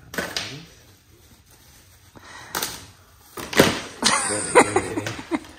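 Plastic packaging crinkling and rustling, with a cardboard box being handled, as wrapped parts are unpacked. It comes in a few bursts, the busiest crackling near the end.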